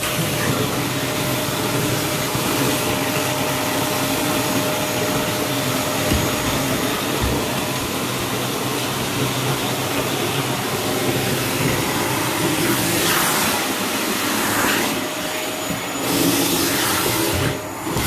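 Vacuum cleaner running steadily while hoovering a Newfoundland dog's thick coat, its note shifting a few times in the second half.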